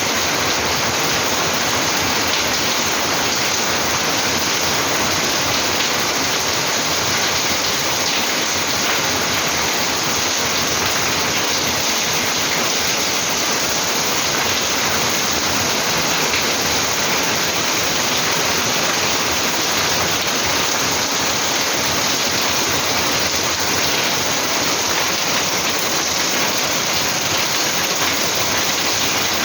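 Heavy rain pouring down: a dense, steady hiss that holds its strength throughout.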